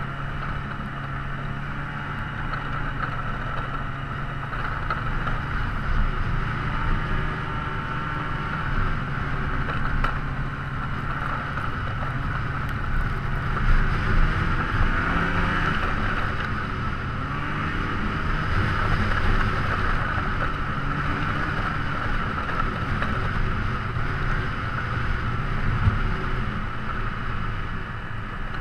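A steady motor drone with a low hum, its pitch shifting slightly about halfway through.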